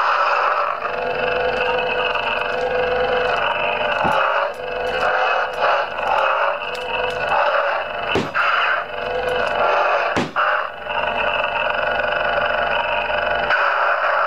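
Lightsaber sound font played through the saber's small built-in speaker by its Igniter 3 sound board: a steady electric hum that starts abruptly. A few quick swing swooshes cut through it.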